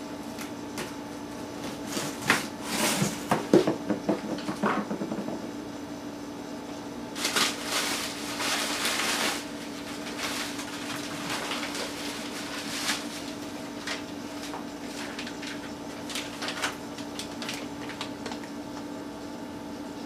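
Packaging and small objects being handled: bursts of rustling and clatter about two to five seconds in and again about seven to nine seconds in, with scattered lighter clicks after. A steady low hum runs underneath.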